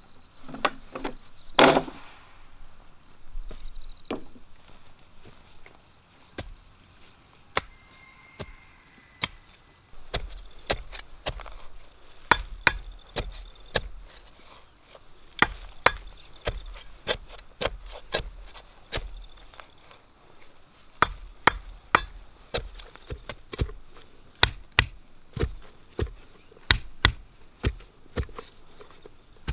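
A steel digging bar driven again and again into hard soil to dig a hole: repeated sharp strikes, coming faster in the last several seconds. Near the start there is a single loud wooden knock as bamboo poles are set down.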